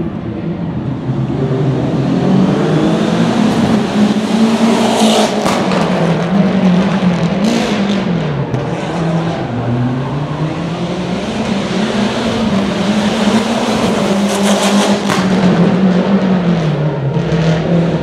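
Rally car engine driven hard, its pitch rising and falling again and again as it accelerates and shifts, with a few sharp cracks along the way.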